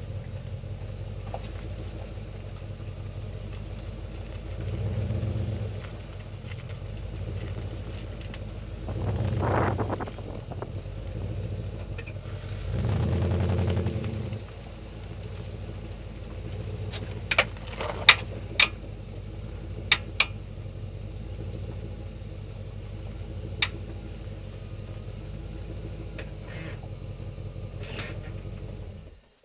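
Jeep Grand Cherokee WJ engine idling steadily, with three louder swells in the first half. Several sharp clicks come in the second half, and the sound cuts off suddenly near the end.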